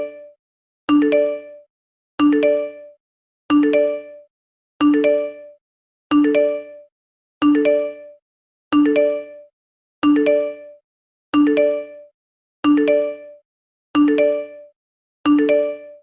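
iPhone text message alert tone playing over and over, about every 1.3 seconds: each one a short chime, with a higher note coming in just after the first.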